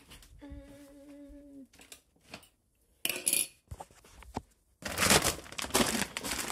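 A woman hums one steady note for about a second, followed by a few light knocks. From about five seconds in, a plastic Purina One dry dog-food bag crinkles and rustles loudly as it is handled.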